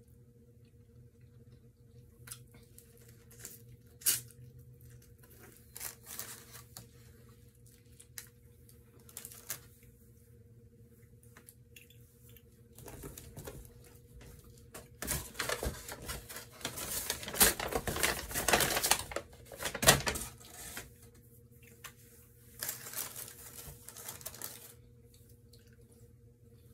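Close-up mukbang eating sounds: biting into and chewing corn on the cob, with scattered crisp crackles and a denser, louder run of crackling past the middle.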